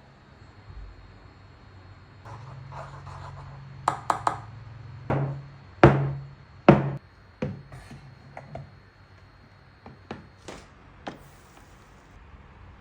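Kitchen utensils and bakeware knocking and clattering, about a dozen separate knocks, the loudest around the middle, some ringing briefly. A low hum runs underneath from about two to seven seconds in.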